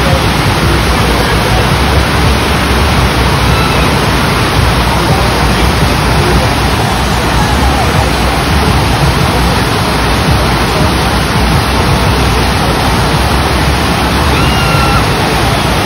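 Loud, steady rush of water from an artificial standing-wave surf ride, its sheet of pumped water pouring continuously over the slope.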